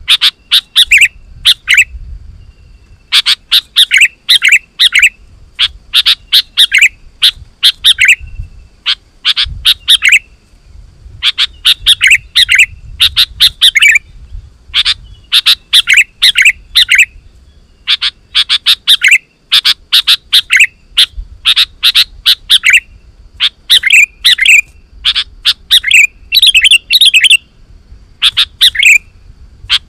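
Sooty-headed bulbul (kutilang) singing persistently: loud, short phrases of quick chirpy notes, repeated about every second or two with brief pauses between.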